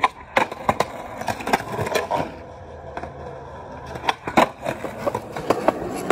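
Skateboard on a concrete sidewalk: wheels rolling with a string of sharp clacks as the board is popped and lands during trick attempts.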